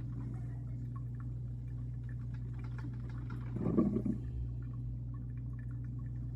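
A steady low hum, with one short muffled rumble a little past halfway through.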